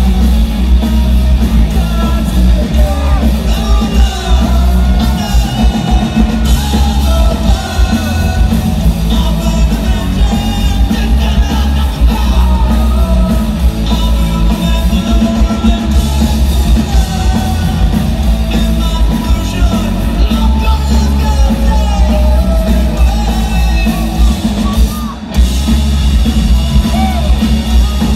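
Live punk rock band playing loud: electric guitar, bass and drums with a male lead singer's vocals, heavy in the low end. The music drops briefly about 25 seconds in, then picks up again.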